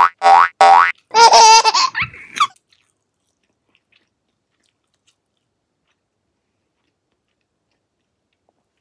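Excited wordless vocalising by a woman: a quick run of short pitched yelps, then a longer wavering squeal ending about two and a half seconds in, followed by near silence.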